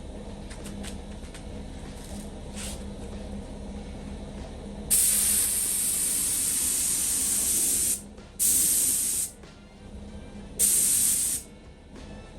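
Primer being sprayed onto a truck's bare-metal bed panel: one long hissing spray pass of about three seconds, then two short bursts of about a second each.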